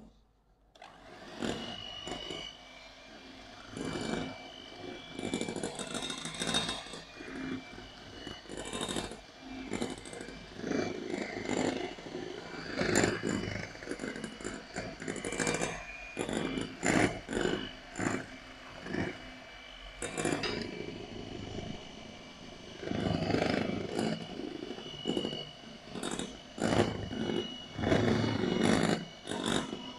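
Electric hand mixer switched on about a second in, its twin beaters whisking flour into cake batter in a glass bowl: a steady high motor whine with the sound swelling and dropping unevenly as the beaters churn the batter.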